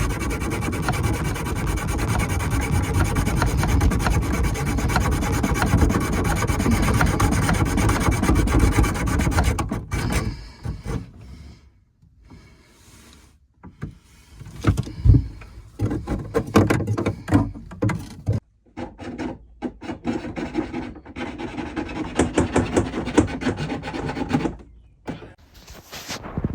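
Rubbing and scraping: a long unbroken stretch of about ten seconds, then scattered scrapes and knocks, and another run of rapid scraping strokes near the end.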